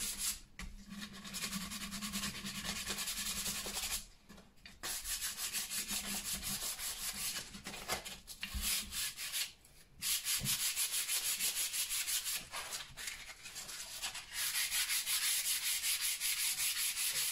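120-grit sandpaper rubbed by hand up and down a wooden axe handle: fast, even back-and-forth scratching strokes, broken by two short pauses, about four and ten seconds in.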